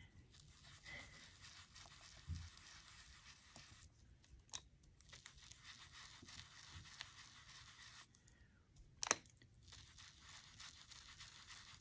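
Faint scratchy rubbing of a foam ink-blending dauber being swirled over cardstock to lay down Distress Ink, with a few light taps and one sharper click about nine seconds in.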